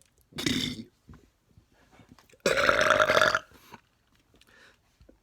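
A man belching twice: a short burp about half a second in, then a longer, louder one lasting about a second near the middle.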